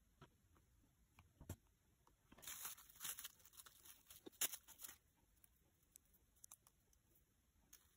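Faint crinkling of a clear plastic bag as a piece of clay is taken from it, for about two and a half seconds in the middle, with a few light taps and clicks of handling around it.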